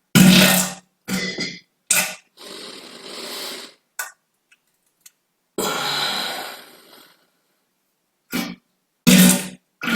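A run of short, loud farts, several with a low buzzing pitch, between longer, quieter airy hissing passes of gas. There are about six separate bursts, with a gap of a second or more near the middle.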